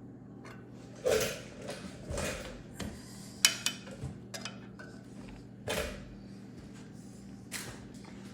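Multi-spoke wrench clinking and scraping on the spoke nipples of a dirt bike's front wheel while the spoke tension is checked, in a handful of separate metallic strokes. About three and a half seconds in, one sharp clink rings briefly.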